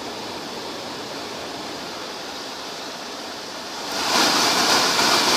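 Repaired Samand heater blower fan running on test, a steady rush of air. About four seconds in, the air noise jumps much louder and holds.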